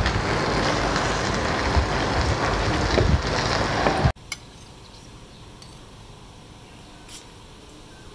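A steady loud rushing noise, with a metal spoon scraping and digging through cooked rice in a clay handi. About four seconds in it cuts off abruptly to quiet, with a few faint clicks of a spoon on a plate.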